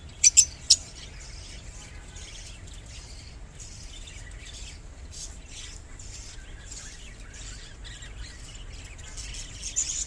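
A flock of lovebirds (Fischer's and blue masked) chirping and chattering: three sharp, loud chirps at the start, then continuous high, busy chatter, with another loud chirp near the end.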